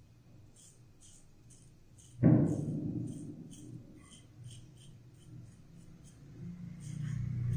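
Double-edge safety razor (Pearl Flexi adjustable) scraping through about 20 days of heavy goatee stubble in short strokes, about three a second. A sudden loud thump about two seconds in rings down over a second, and faint background music comes up near the end.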